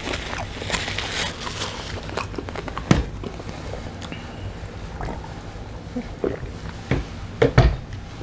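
Drinking from a large plastic water jug, water sloshing, with scattered clicks and knocks as the jug is handled; the loudest knocks come near the end as it is set down.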